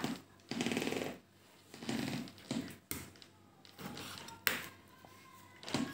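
Kitchen knife cutting raw pork on a wooden cutting board: short bursts of cutting with a few sharp knocks of the blade on the board.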